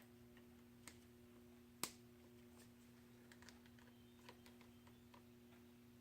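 Near silence with small metallic clicks and ticks from hand work on a motorcycle chain's master link and clip. One sharp click comes about two seconds in, then a scatter of faint ticks, over a steady low hum.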